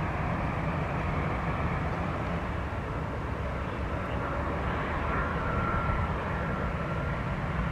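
Airbus A320-200 jet engines running at taxi idle as the airliner taxis in: a steady rumble and hiss, with a faint whine coming in about four seconds in and fading a couple of seconds later.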